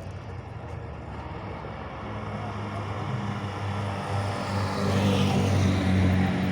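Rally car engine running at a steady pitch, growing louder from about two seconds in and loudest near the end.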